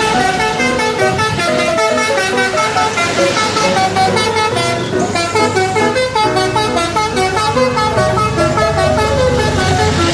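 Telolet multi-tone horns playing rapid runs of short stepped notes like a tune, over a low steady engine hum that grows stronger about halfway through.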